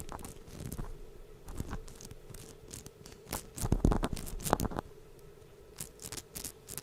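Drivetrain part from a WLToys 144001 RC car turned by hand close to the microphone, making an irregular scratchy, crunching grind. The rough, not very smooth running marks the worn or under-greased part behind the car's grinding noise.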